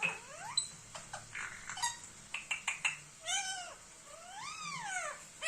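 Indian ringneck parrot calling: a run of quick, sharp chirps, then two long calls that each rise and fall in pitch.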